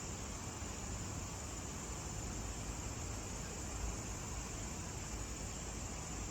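Steady outdoor night ambience: a continuous high-pitched insect chorus over a low, even rumble, with no distinct events.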